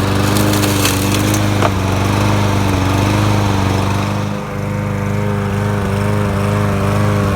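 Small lawnmower engine running steadily, now going again after its plastic carburetor was blown out. A few sharp clicks in the first couple of seconds, and a brief dip in its sound about four and a half seconds in.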